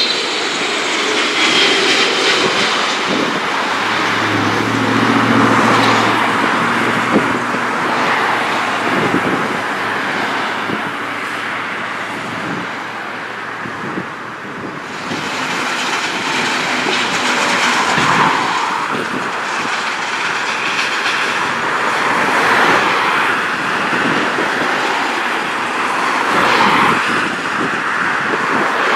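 Continuous roar of jet airliners and traffic on a busy highway, with passing vehicles swelling and fading every few seconds. Near the start comes the falling whine of a landing jet airliner's engines.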